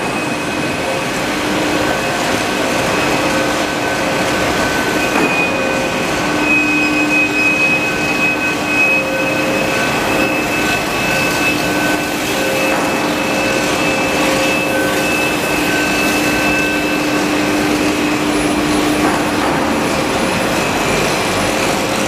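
Cable factory production machinery running: a steady machine drone with several held whining tones over a noisy background.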